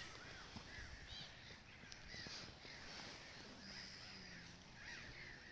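Faint distant birds calling: several short calls, each a quick rise and fall in pitch, spaced about a second apart, over a low outdoor rumble.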